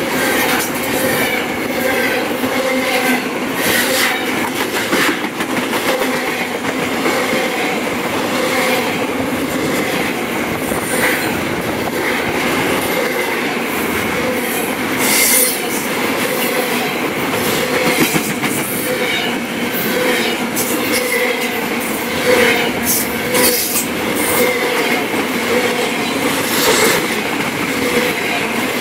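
Container freight train rolling past at close range: a steady, loud noise of steel wheels on the rails, broken by irregular clanks and knocks, with steady high tones running through it.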